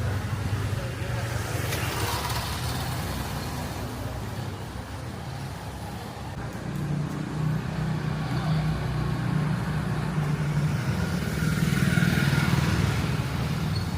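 Street traffic: motor vehicle engines running, with vehicles passing close by around two seconds in and again near the end.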